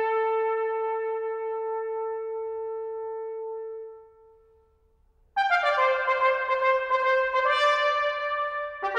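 Trumpet playing: a long held note dies away over about four seconds, then after a second of silence a new passage of changing notes begins.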